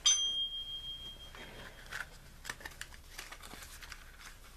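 A sharp metal clink whose clear ring fades over about a second. It is followed by scattered light crinkling, rustling and small clicks of hand handling as the rubber bands are picked up.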